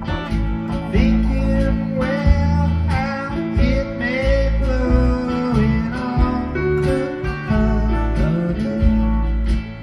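Instrumental acoustic guitar solo: a melodic lead line with bent notes over a low, steady accompaniment.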